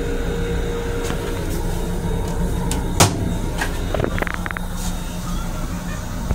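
Steady low rumble and hum of an M7 railcar, with a sharp knock about three seconds in as the plastic toilet lid is lifted and knocks back, then a few light rattles.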